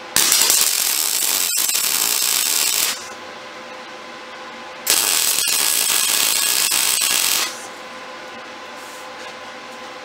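MIG welding arc running in two bursts of about two and a half seconds each, two seconds apart, as a steel rod is welded to a steel base plate.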